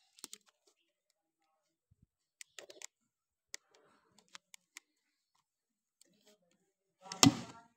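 Lid of a plastic paint bucket being pried open by hand: scattered sharp clicks and snaps of the plastic rim and seal, then a louder snap about seven seconds in as a man's voice starts.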